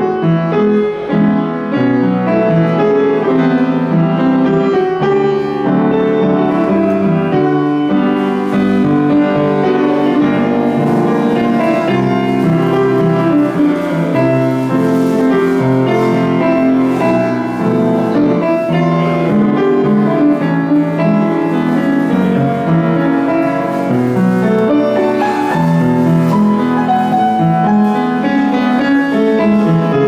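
Upright piano being played: a flowing piece of overlapping, held notes and chords at an even loudness.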